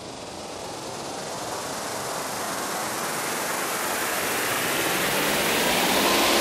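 Synthesized white-noise riser in a psytrance track, a hiss that swells steadily louder and brighter with no beat under it: the build-up toward a drop.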